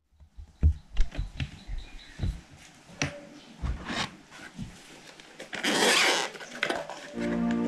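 Close handling noises: a string of knocks, clicks and rubs on the camera and the gear being handled, then a longer rustle about six seconds in. Soft background music begins near the end.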